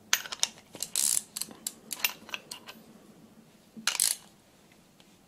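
Metal tooling being handled: a quick, irregular series of clicks and rattles for the first two and a half seconds, then a short scrape about four seconds in.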